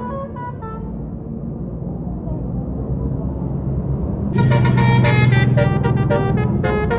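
Tour bus basuri (telolet) multi-tone air horn playing a melody: a few short notes in the first second, then the bus engine rising for about three seconds, then from about four seconds in a louder run of quick changing horn notes.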